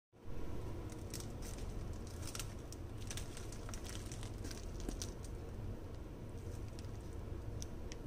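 Plastic courier mailer pouch crinkling in the hands as it is handled, with scattered sharp crackles, most of them in the first half, over a low steady hum.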